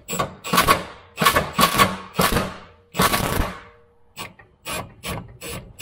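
A hand ratchet on a long socket extension being worked back and forth to back out a rear cradle (subframe) bolt, each swing giving a burst of pawl clicks. The strokes are slow and uneven at first, then quicker, about three a second, in the last second and a half.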